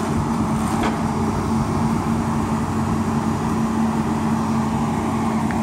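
Tracked excavator's diesel engine running steadily with a low hum, with a faint clank about a second in and another near the end.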